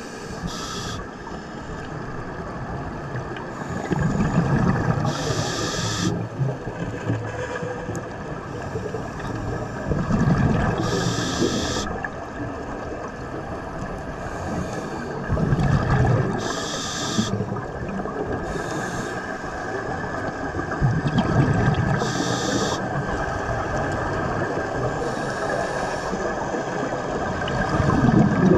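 Scuba diver breathing through a regulator underwater. A bubbling, low rush of exhaled air is followed each time by a short hiss of inhaling through the demand valve, about every five and a half seconds.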